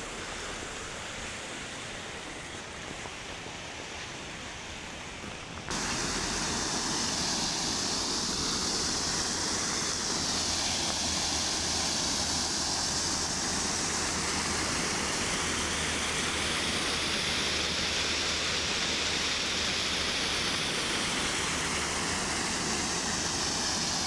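Water from a small stream pouring over a low weir into a pool, a steady rushing noise that becomes suddenly louder about six seconds in.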